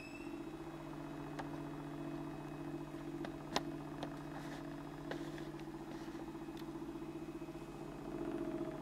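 Homemade free-piston Stirling engine running with extra weight on its power piston: a steady buzzing hum from the oscillating piston, with a few sharp clicks, the loudest about three and a half seconds in. The hum grows a little louder near the end.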